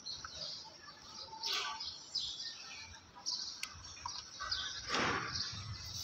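Small birds chirping on and off, with brief rustles and clicks from a pressure-washer spray lance and foam cannon being handled and fitted together.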